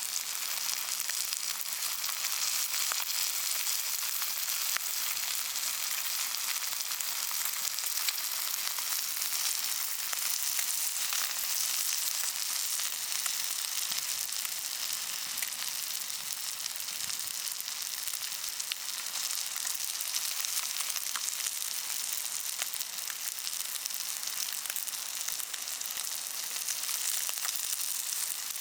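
Food sizzling in hot oil in a pan: a steady high hiss with scattered small pops, starting suddenly.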